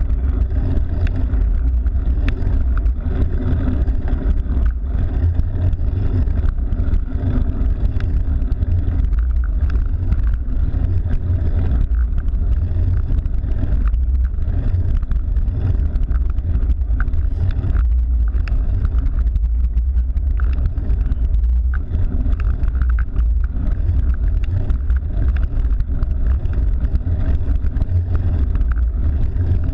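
Steady, loud wind rumble on the microphone of a camera carried on a moving cyclocross bike.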